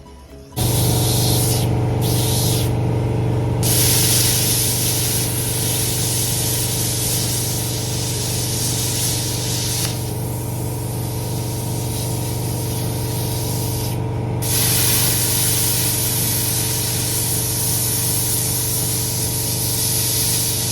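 Hypertherm plasma cutter cutting steel: a steady electrical hum under a loud hiss of air and arc. It starts abruptly about half a second in; the hiss cuts out twice in the first few seconds and softens for a few seconds in the middle, as the arc stops and restarts.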